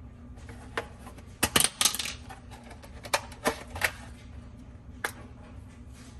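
A scattering of sharp, irregular clicks and clacks, in two quick clusters and then one more near the end, over a faint steady low hum.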